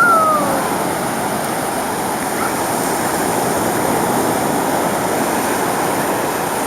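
Ocean surf washing steadily. Right at the start a short, falling, high-pitched cry rises above it.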